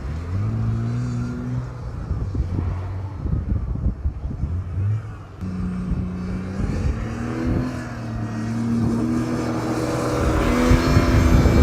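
Off-road 4x4's engine working under load as it attempts a sand dune climb, its note shifting in pitch and growing louder toward the end.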